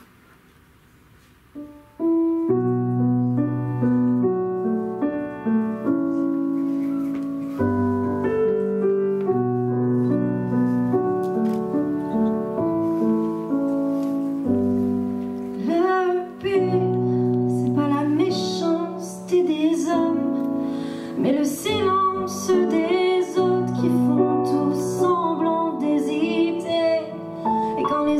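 Piano accompaniment starts about two seconds in with slow, held chords; about halfway through, a woman's voice starts singing over it through a microphone.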